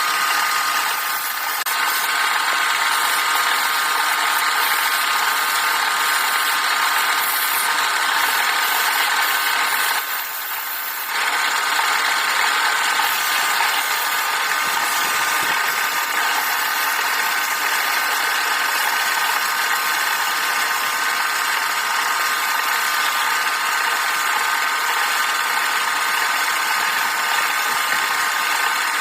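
Electric woodworking lathe running steadily with a constant whine, easing off briefly about ten seconds in, then running on.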